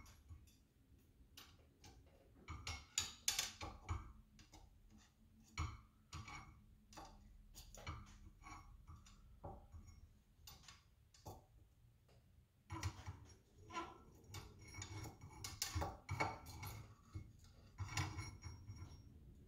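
Faint, irregular metal clicks and scrapes of a long flathead screwdriver working a snap ring down inside a Fox shock body, getting busier near the end.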